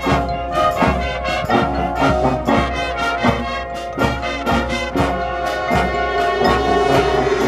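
Marching band playing: brass section with trombones and trumpets over drums striking a steady beat about twice a second, with a sustained note building toward the end.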